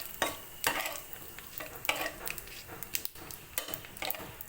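Whole cumin seeds, dried red chillies and bay leaves sizzling in hot mustard oil in a pan, a Bengali tempering (phoron), with sharp irregular crackles and pops throughout as the spices are stirred.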